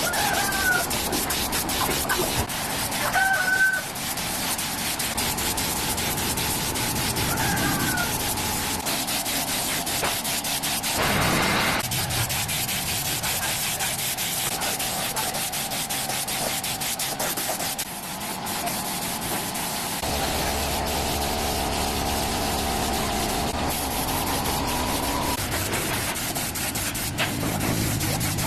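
Steady rubbing and scraping, like sanding a surface by hand, with a few short bird calls in the first several seconds.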